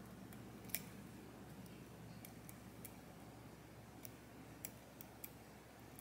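Faint, irregular metallic ticks of a lock pick working the pins of a Medeco M4 lock cylinder under tension, about a dozen scattered clicks over a low steady hum.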